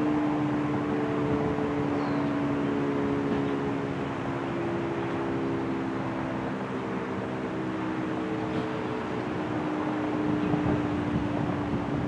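Federal Signal Thunderbeam RSH-10 outdoor warning siren sounding its steady alert tone for the weekly test. It holds a low tone that wavers slightly in pitch and loudness over a windy hiss.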